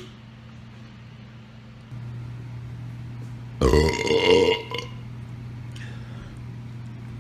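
One loud, drawn-out belch lasting about a second, starting a little past three and a half seconds in. A steady low hum comes in about two seconds in and runs under it.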